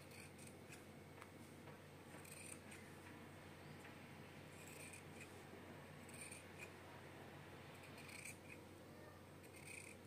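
Large tailoring scissors cutting through fabric: faint, crisp snips of the blades closing, about one every second or two.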